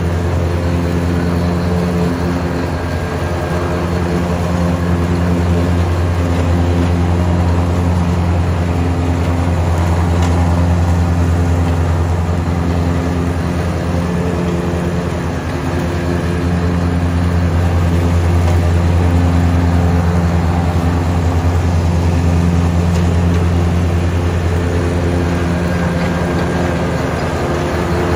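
John Deere 2025R compact tractor's three-cylinder diesel engine running steadily under load while driving a PTO-powered Frontier GM1072 finish mower through grass, dipping briefly in loudness about halfway through.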